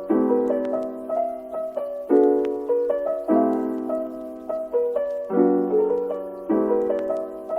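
Background music: a soft jazz piano track, chords struck about once a second and left to ring and fade.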